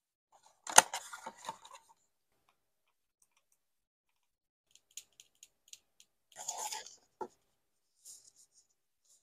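Hands handling cardboard advent-calendar drawers and small cosmetic packaging. A sharp tap comes just under a second in, followed by rustling. A run of light clicks comes around five seconds in, then a short crinkle and a knock near seven seconds.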